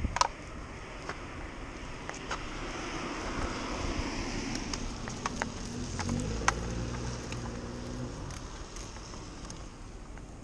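A car passing on a wet road: the hiss of its tyres on the wet tarmac swells and fades over several seconds, with a low engine hum in the middle.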